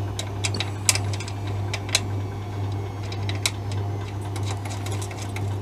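Light, irregular metallic clicks and ticks of a new steel bolt being turned by hand into a threaded mounting hole on a Honda CB200's frame, over a steady low hum.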